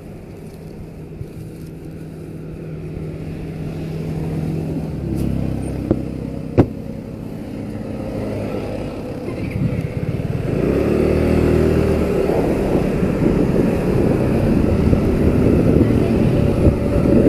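Motorcycle engine idling, then pulling away and accelerating, getting louder as it gathers speed, with wind noise building. A single sharp click about six and a half seconds in.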